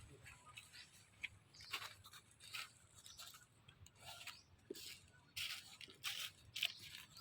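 Faint scattered rustling and crunching with small clicks, and a louder rustle about five and a half seconds in.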